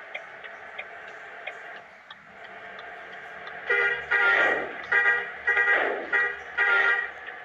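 Sugeng Rahayu bus's multi-tone horn sounding a run of about five loud toots, starting about halfway through, with short gaps between them.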